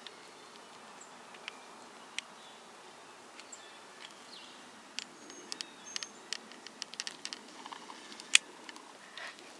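Quiet woodland with a low steady hiss and a few faint high chirps, broken by scattered sharp clicks and crackles that grow busier from about five seconds in. The loudest is a single sharp click with a dull knock near the end.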